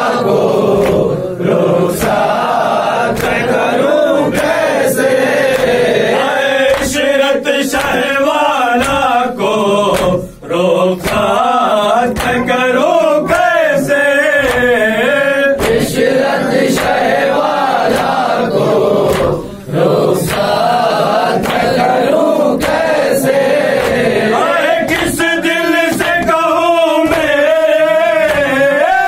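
Men reciting a nauha, a Shia lament, in unison, a chorus of male voices singing together, over sharp slaps at a steady beat of about one a second: the hand-on-chest beating of matam. The singing drops out briefly twice, about ten seconds in and again near twenty.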